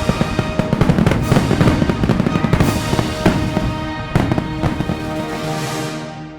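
Rapid fireworks bangs and crackles over background music, the whole mix fading out near the end.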